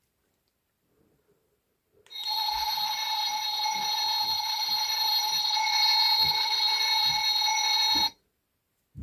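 Electronic bell ringing from a capsule-toy mascot's tiny speaker, starting about two seconds in, held steady for about six seconds, then cutting off suddenly.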